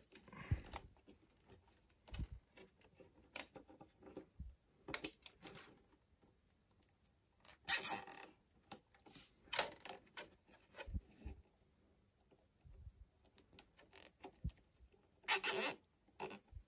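Intermittent handling noises of a welding machine's argon gas hose and quick connector: small metallic clicks, knocks and rubbing, with two brief louder rustling bursts, about eight seconds in and near the end.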